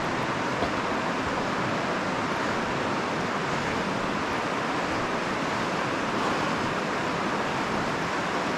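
The Virgin River running over rocks in the Narrows: a steady, even rush of flowing water.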